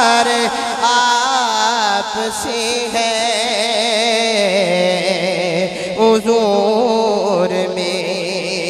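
A man singing a devotional naat in a long melismatic line, drawing out wavering, ornamented notes with no clear words.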